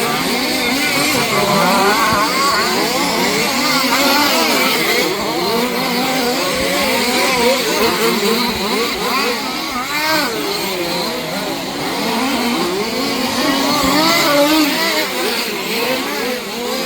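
Several 1/5-scale off-road RC cars racing, their small two-stroke petrol engines revving up and down over one another.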